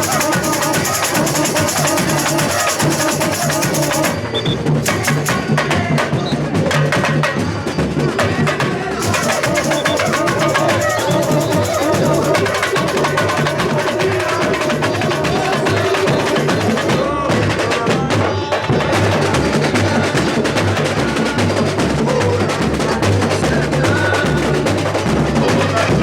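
A samba bateria playing a full groove: surdo bass drums pulse steadily under snare drums and other hand percussion. A bright, shaker-like high hiss fills roughly the first four seconds and then thins out.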